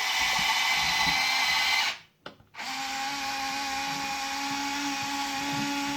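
Small electric motors and gearing of a Huina 580 RC excavator whirring steadily. The whine cuts out briefly about two seconds in, then starts again at a lower pitch.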